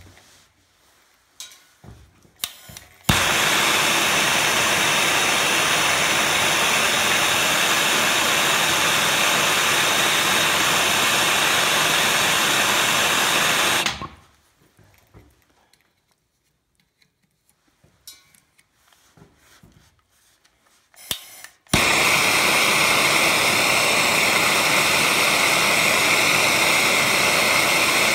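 Hand-held gas soldering torch lit with a sharp click about three seconds in and burning with a loud, steady hiss while heating a pipe joint for soldering. It shuts off after about eleven seconds, and a few small clicks follow. It is relit with another click about eight seconds later and burns again to the end.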